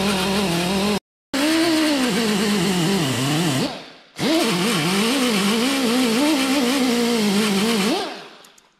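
Small handheld rotary tool with an abrasive disc buffing the painted steel skin of a school bus. Its whine wavers in pitch as it is pressed against the metal. It cuts out for a moment about a second in, winds down and restarts around four seconds, and winds down near the end.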